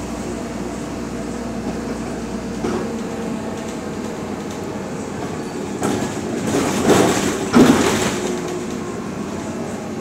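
Cabin sound of a BredaMenarinibus Monocar 231 CU natural-gas city bus under way: its engine drones steadily with road rumble. About seven seconds in comes a louder noisy stretch of two surges.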